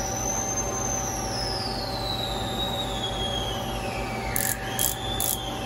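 Micrometer anvils rubbing on a turned steel shaft: a thin metallic squeal that slowly wavers up and down in pitch, with a few short scrapes near the end. Under it runs the lathe's steady machine hum.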